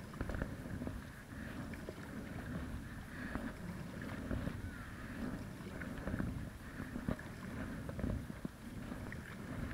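Stand-up paddle board being paddled on a lake: the paddle blade dipping and pulling through the water with splashes and drips. Wind rumbles on the microphone throughout.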